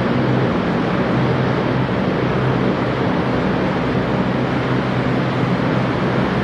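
Steady drone of military helicopter engines and rotors, with a few low steady tones under a dense rushing noise.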